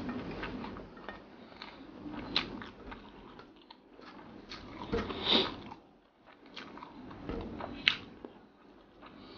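Close-up chewing and mouth sounds of a person eating rice and sardines by hand: scattered wet clicks and smacks. Fingers gather rice on a steel tray. The loudest burst comes about halfway through, and a sharp click comes near the end.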